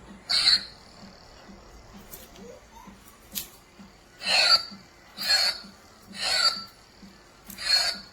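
Toy lightsaber's electronic sound effects: five short synthetic bursts, each with a high tone sweeping downward, the first about half a second in and four more closely spaced in the second half.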